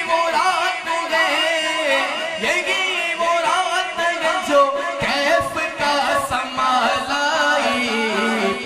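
A male voice singing a naat, a devotional song in praise of the Prophet, into a microphone in long, winding phrases that bend and glide in pitch.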